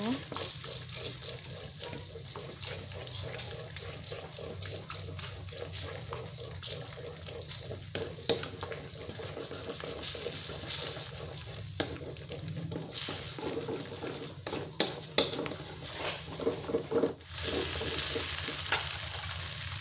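Beaten eggs frying in a little oil in a pan, sizzling as a utensil stirs and breaks them into scrambled egg, with scattered clicks of the utensil against the pan. The sizzling grows louder near the end.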